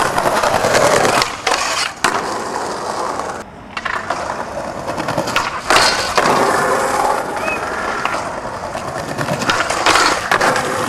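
Skateboard wheels rolling over stone paving slabs, with a loud pop of the board about six seconds in as the skater ollies, then the trucks grinding along a steel handrail near the end.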